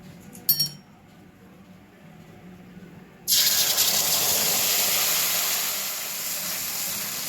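A brief metallic clink, then wet spice paste of turmeric and cumin powder hits hot mustard oil and ghee in a kadai and starts sizzling loudly all at once, a steady hiss that eases only slightly.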